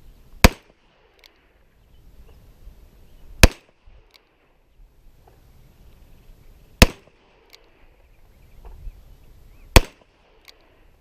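Revolver fired four times, single shots about three seconds apart, each a sharp crack.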